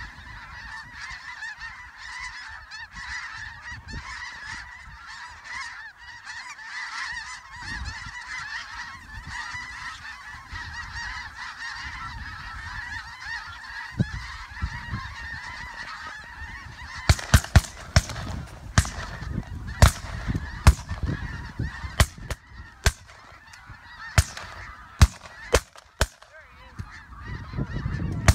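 A large flock of snow geese calling overhead, a dense, continuous chorus of honking. A little past halfway the calling thins, and about a dozen sharp cracks, louder than the geese, come in quick irregular succession.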